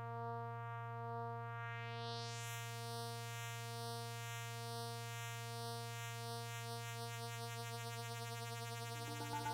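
Korg NTS-1 and Arturia MicroFreak synthesizers playing ambient music: a single low drone note held steady, its upper overtones slowly sweeping and shimmering as the sound is shaped. Near the end a new, louder higher tone comes in.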